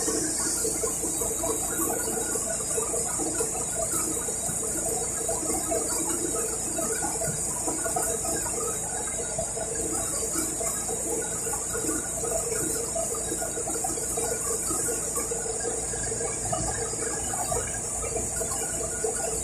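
Interior of a city bus riding along: a steady low rumble under constant rattling and squeaking of the body panels and fittings, with a steady high hiss.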